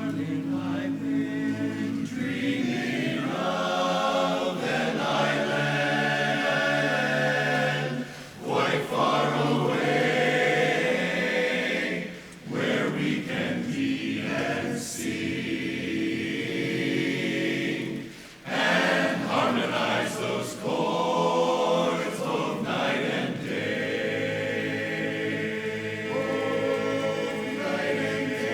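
Barbershop chorus singing a cappella in close four-part harmony: held, ringing chords in phrases, with brief breaks between them.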